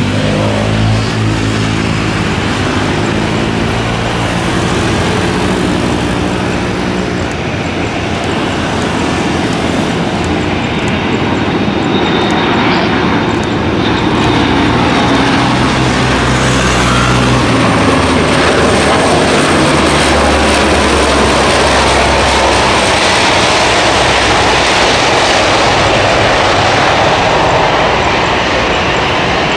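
Lockheed C-130 Hercules's four turboprop engines and propellers droning as the aircraft comes in low to land; a loud steady propeller hum whose pitch shifts as it passes.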